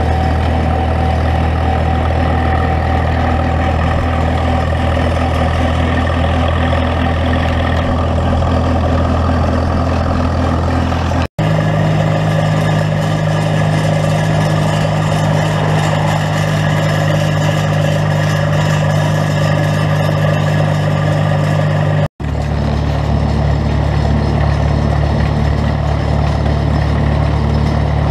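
Tractor engine running steadily under way, heard from a camera mounted beside its exhaust stack. The sound drops out briefly twice, about 11 and 22 seconds in, and the engine's pitch is different after each break.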